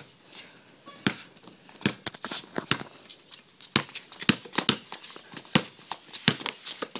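Irregular sharp taps and scuffs on a hard surface, roughly two a second and uneven in strength, over a faint hiss.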